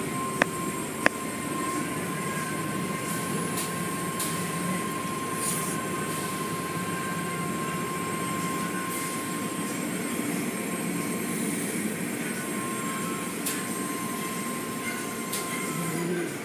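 Automatic car wash running, heard from inside the car: a steady mechanical rumble with a constant high whine, and water and brushes hitting the glass. Two sharp clicks sound near the start.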